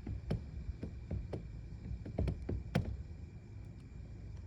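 About nine light knocks and clicks, irregularly spaced over the first three seconds, over a low steady rumble.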